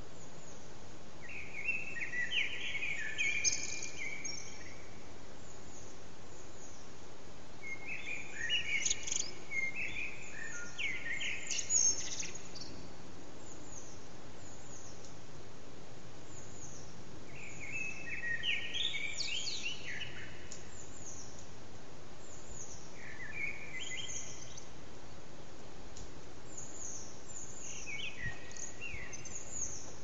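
Common blackbird singing its dawn song: warbling phrases every few seconds, each ending in brief high twittering notes, over a steady background hum.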